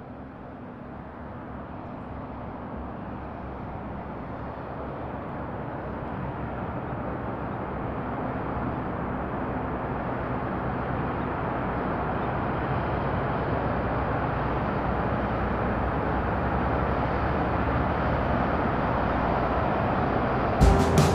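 A steady rushing rumble that swells slowly louder throughout; near the end sharp percussive hits of music cut in.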